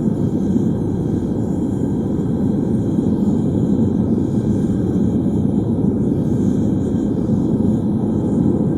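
Propane burner of a single-burner metal-melting furnace running at a steady full flame, a continuous low rushing noise with no change in pitch, while copper inside heats to near melting.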